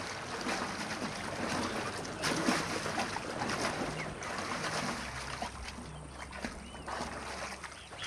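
Water splashing and churning as a wildebeest thrashes in a river, held by a crocodile. The splashes come in irregular rushes, heaviest a couple of seconds in and easing toward the end.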